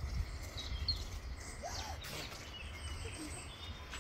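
Garden ambience: a steady low wind rumble on the microphone, with a few short bird chirps scattered through it.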